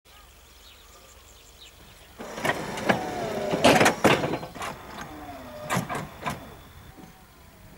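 Railway wagons clanking and squealing: starting about two seconds in, a run of sharp metallic clanks with short, falling squeals between them, dying away near the end.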